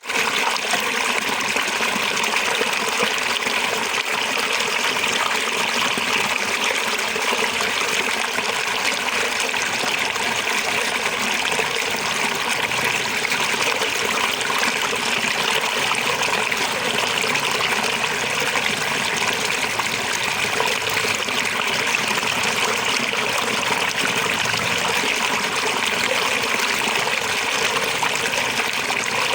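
Small waterfall: water splashing and trickling steadily over rocks.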